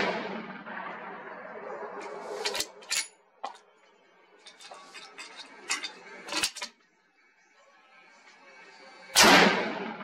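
The report of a .338 Lapua Magnum rifle shot rolling away at the start, then a handful of sharp metallic clicks as the rifle is reloaded. A second loud rifle shot comes about nine seconds in, its echo trailing off.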